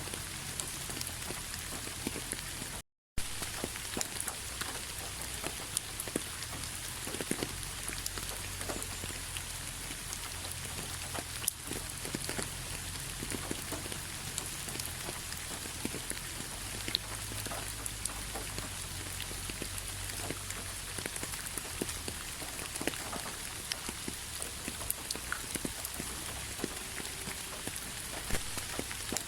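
Steady rain falling, many separate drop hits clicking over an even hiss. The sound cuts out for a split second about three seconds in.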